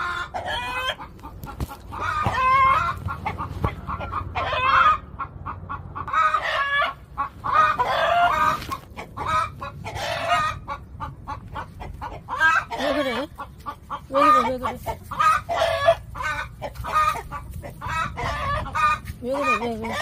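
Chickens clucking and calling over and over, several birds at once, with a rooster crowing among them.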